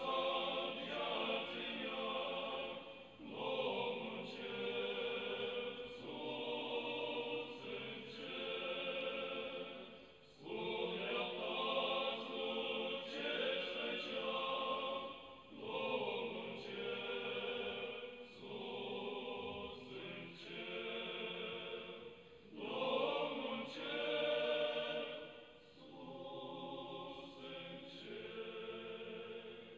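Choir singing in slow phrases, each a second or two long, with short breaths between them.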